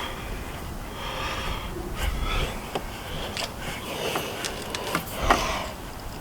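Close-up breathing and sniffs of a man at work, with a few light clicks and taps as a metal bullet antenna is screwed onto its base by hand.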